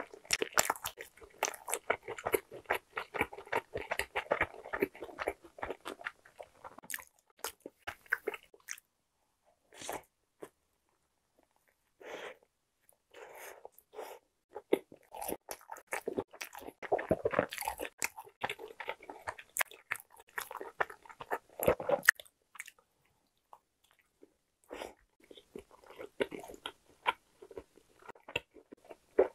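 A person chewing a soft sausage-filled bread roll, with moist mouth sounds and small clicks in bouts. There are two short pauses, about a third of the way in and again past two-thirds.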